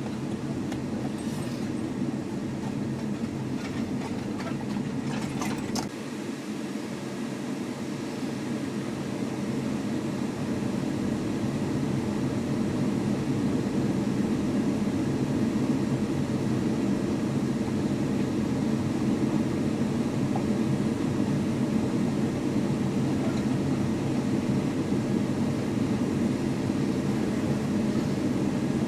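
Floodwater rushing steadily over a flooded low-water creek crossing, a constant roar of fast-flowing water with a steady low hum under it. The roar grows a little louder from about ten seconds in.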